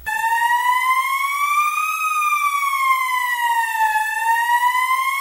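Siren wail: one loud, buzzy tone slowly rising for about two seconds, falling for about two, then starting to rise again before it cuts off suddenly.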